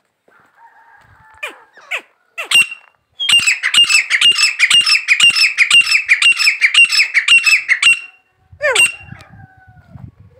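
Grey francolin calling: a few short notes, then a loud, rapid run of sharp, repeated notes for about five seconds, stopping about eight seconds in, then one call that slides down in pitch.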